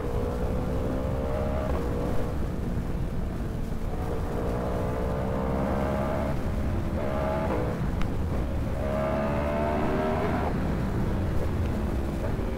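Yamaha R1's crossplane inline-four with an Austin Racing exhaust accelerating hard, its note rising in pitch and dropping back at three upshifts, under heavy wind noise on the microphone.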